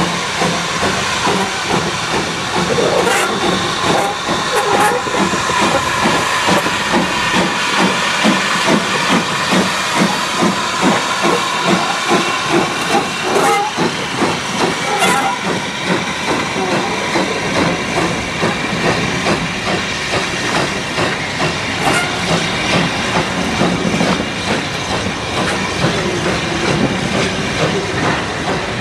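Hudswell Clarke 0-6-0T tank locomotive pulling away with its train. Steam hisses steadily and the exhaust beats come at a regular rhythm.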